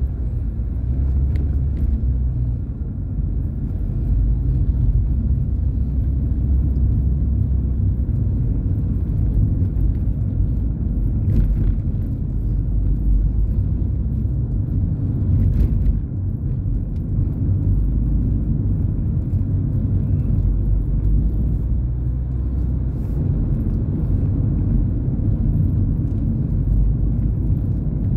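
Steady low rumble of a car's engine and road noise, heard from inside the moving car's cabin.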